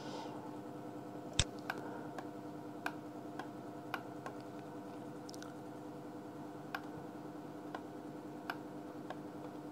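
Scattered single clicks of a computer mouse, about a dozen at irregular intervals, over a steady low hum.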